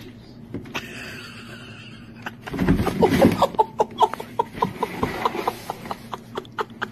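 A person laughing in a run of short, even bursts, about three a second, starting a couple of seconds in. Rustling and bumps from a handheld phone being moved come in as the laughter starts.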